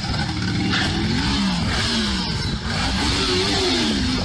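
Motorcycle engine running, its pitch rising and falling again and again, about once every second or two, as the bike swings through the air on straps.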